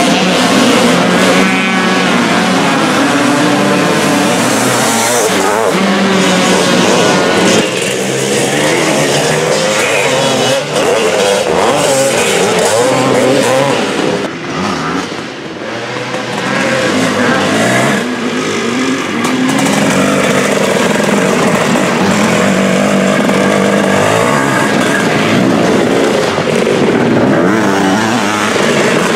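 Several classic two-stroke motocross bikes racing, their engines revving up and down and overlapping as they ride through the corners. The sound drops off briefly about halfway through, then builds again as more bikes come round.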